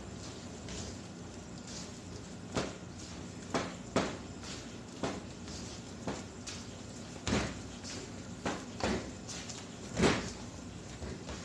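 Bread dough being mixed by hand in a stainless steel bowl on a steel worktable: irregular knocks and thuds as the bowl is pushed and shifted, about one a second, the loudest about ten seconds in.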